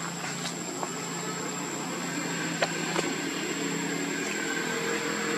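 An engine running steadily, slowly growing louder, with a thin high whine throughout and two sharp clicks about halfway through.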